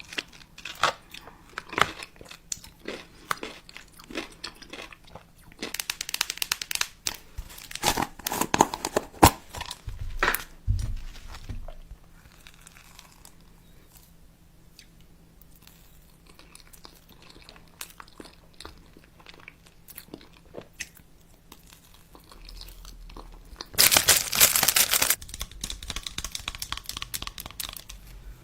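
Crunchy food being bitten and chewed up close, in bursts of crackling crunches. Packaging crinkles and tears, loudest about 24 seconds in.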